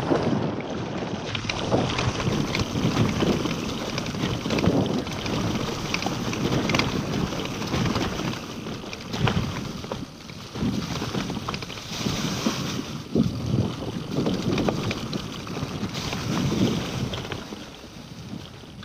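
Wind rushing over the action camera's microphone as a Scott Genius LT 710 Plus mountain bike rolls down a dirt trail, with many short clicks and knocks from the bike rattling over bumps.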